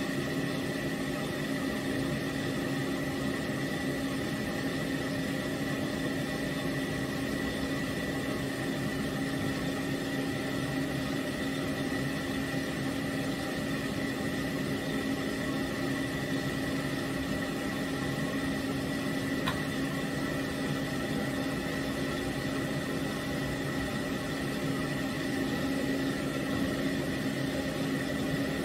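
Stand-mounted pet grooming dryer running steadily: a constant motor hum with a high whine over the rush of blown air.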